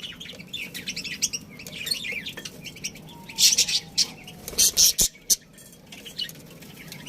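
A flock of budgerigars chattering with rapid, overlapping high chirps. Louder bursts come twice a little past the middle.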